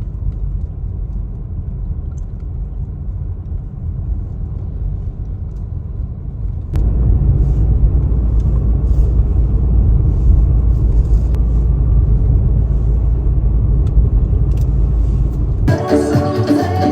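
Car driving, a steady low rumble of road and engine noise heard from inside; it steps up louder about seven seconds in, and music comes in near the end.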